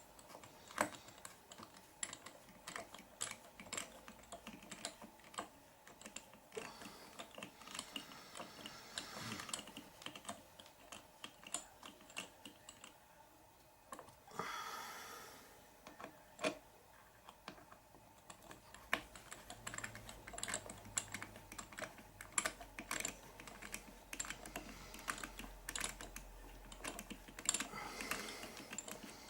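Small screws being driven by hand into the plastic rear arm mounts of an RC car kit: a long run of soft, irregular clicks and ticks from the driver and the plastic parts, with a brief rustle about halfway through.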